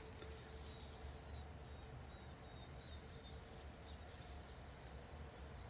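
Quiet outdoor ambience: faint steady chirring of insects in the grass over a low rumble.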